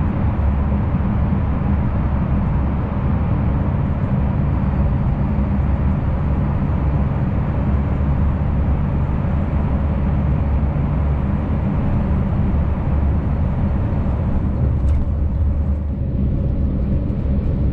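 Scania S650 V8 lorry cruising, its engine's steady low drone and tyre and road noise heard from inside the cab. The rushing noise eases near the end as the lorry leaves a tunnel.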